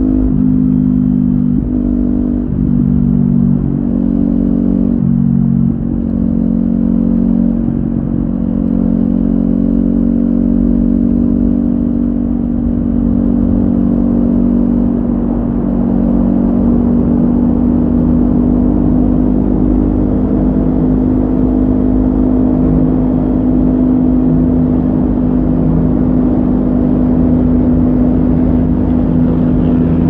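Kawasaki Ninja 400's parallel-twin engine through an Akrapovic carbon slip-on exhaust with the noise insert removed, heard from the rider's seat. The engine note changes pitch in steps over the first several seconds, then runs at steady revs while cruising.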